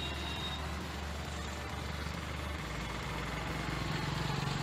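Steady outdoor background noise picked up by a phone's built-in microphone, with a low rumble that swells slightly near the end.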